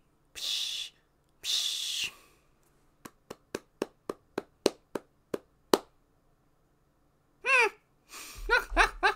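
A man breathes out hard twice, then claps his hands about ten times in quick succession, then gives short bursts of laughter near the end.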